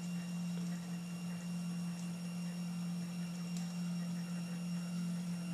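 Stepper motor on a Zen Toolworks 7x7 desktop CNC's Y-axis making a steady hum as it drives the table back toward its limit switch during the homing cycle.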